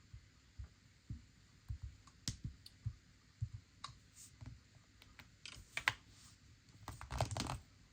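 Scattered light clicks and taps with soft low knocks, a quick flurry of them near the end.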